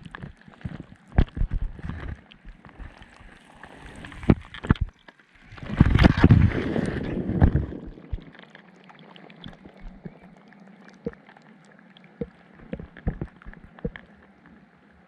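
Water sloshing and splashing with scattered knocks and bumps, and a louder rush of water lasting about two seconds near the middle.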